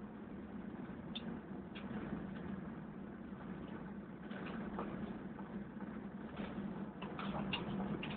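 1984 Ford F-250's 6.9-litre IDI V8 diesel running as the truck drives along, heard from inside the cab as a steady low drone, with a few brief high-pitched squeaks over it.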